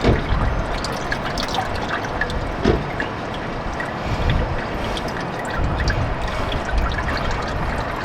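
Used engine oil trickling and pouring out of the loosened oil filter on a turbocharged 4th-gen Toyota Tacoma, let drain slowly. The flow is steady.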